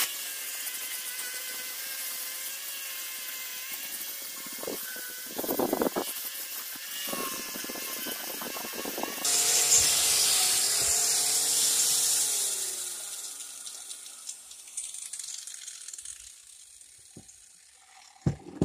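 Power tool working rust off a steel claw hammer head: a steady motor whine under a harsh abrasive hiss. About nine seconds in it gets louder, then the pitch falls as the motor winds down and the hiss fades. A sharp click near the end.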